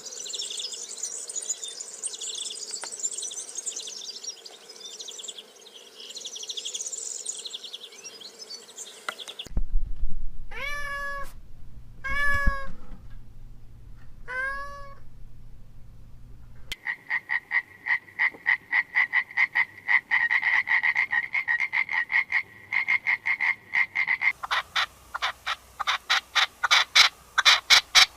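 Animal calls in three parts: dense high-pitched chirping, then four separate drawn-out calls that rise and fall in pitch, then a long run of rapid pulsed calls that speeds up near the end.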